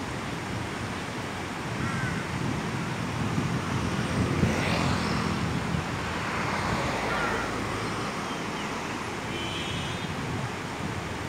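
Steady rushing noise of wind on the microphone and river water, with a vehicle engine passing, loudest about four to five seconds in.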